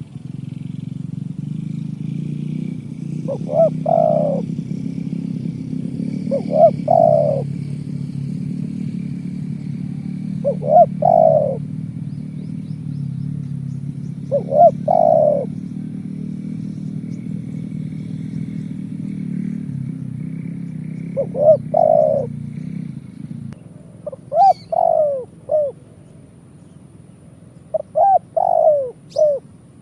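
Spotted dove cooing: seven separate phrases, at first spaced about three to four seconds apart, then closer together near the end, where the last phrases carry extra short notes. Under the first two-thirds runs a low steady rumble, which stops suddenly.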